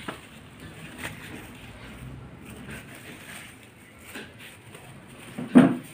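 Plastic bags and packaging rustling and crinkling as they are handled on a table, with a few light knocks. There is one short, loud voiced sound near the end.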